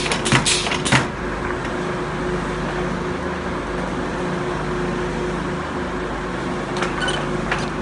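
Filter press plate being shaken up and down by a pneumatic plate-shaking device to knock the filter cake loose: a quick run of knocks that stops about a second in, then a steady machine hum with a steady tone, and a few clicks near the end.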